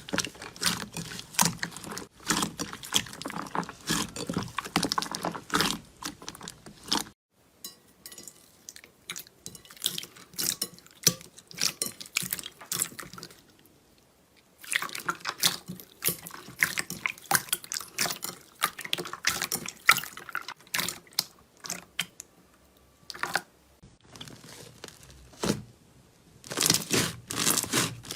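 Slime being squeezed and poked by hand: dense wet clicks, pops and crackles. The sound comes in several separate stretches that change abruptly, with a quieter, sparser stretch about a third of the way in.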